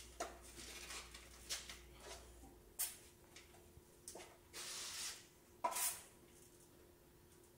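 Steel drywall knife scraping and smoothing all-purpose joint compound along a drywall corner: a series of short, faint scrape strokes with a couple of sharper clicks.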